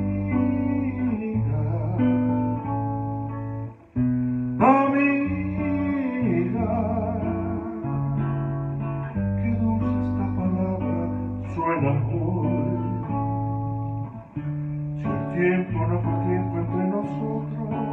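Backing music for a slow ballad: an instrumental passage led by acoustic guitar over sustained chords and a steady bass line.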